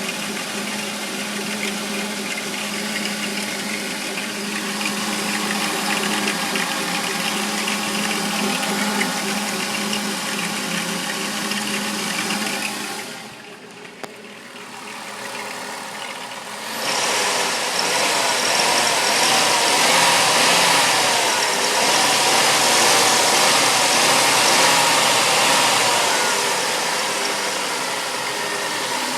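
Chrysler Town and Country's 3.3-litre V6 engine running with a rattling noise. The sound drops sharply for a few seconds about halfway through, then comes back louder and brighter.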